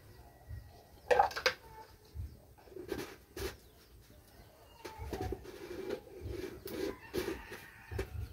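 Firewood crackling and popping in the clay stove under a pan of heating oil, in irregular sharp clicks, the loudest cluster about a second in.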